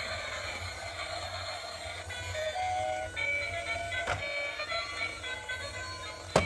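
Simple electronic melody of plain beeping tones over a low steady hum, with a sharp click about four seconds in and a louder one near the end.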